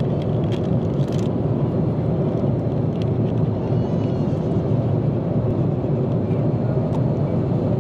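Steady rushing cabin noise of an Airbus A330-300 airliner in cruise, with a snack wrapper crinkling and tearing open in the first second or so and again about three seconds in.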